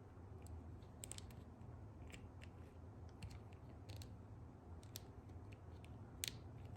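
Near silence with scattered faint, light clicks of a plastic action figure being handled.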